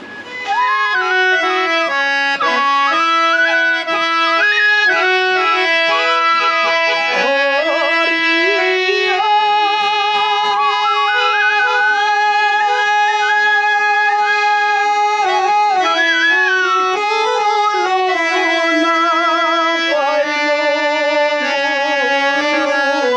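Harmonium and bamboo flutes playing an Assamese folk tune, with a man singing along at the harmonium; the melody is held in long notes, some with a wavering vibrato.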